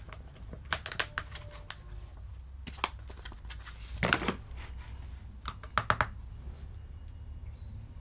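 Scattered light clicks and crinkles from a plastic sachet of powder pigment being handled and tipped into a plastic tub of powder, over a low steady hum.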